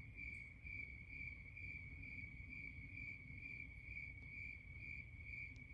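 Crickets chirping steadily in a faint, even trill of about four high pulses a second. No whistles or calls stand out over it.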